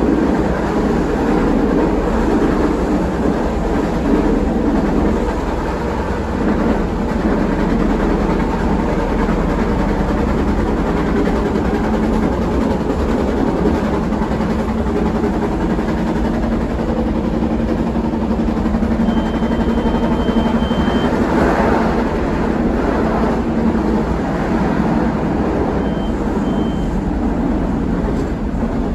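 CTA 2600-series rapid transit car running along the track: a steady rumble of wheels on rail with a humming drone from the running gear. A thin high tone sounds for about two seconds about two-thirds of the way in, and briefly again near the end.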